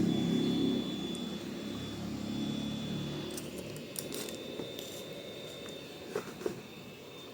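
Hot air soldering gun's blower fan running with a steady hum and a thin high whine, the airflow dying down after about three seconds. A few light clicks of handling follow near the end.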